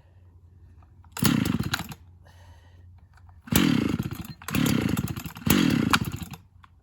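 Chainsaw engine revved in four short full-throttle bursts, one about a second in and three in quick succession later, the pitch sagging during each, with quiet low running between.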